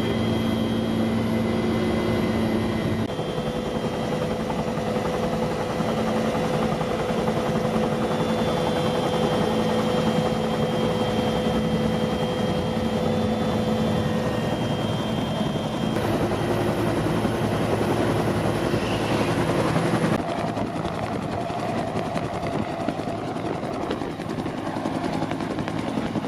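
Helicopter running nearby: a steady mix of rotor noise and engine whine. The sound shifts abruptly a few times, about 3, 16 and 20 seconds in.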